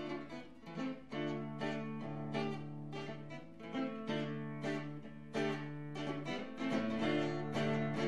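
Live guitar music with no singing: plucked notes picked about twice a second over held low notes.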